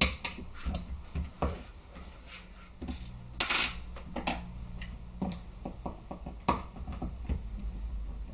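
Light clicks and clinks of small metal parts as small screws and nuts are undone from an airsoft G36 with a small Phillips screwdriver, with a brief rustle about three and a half seconds in.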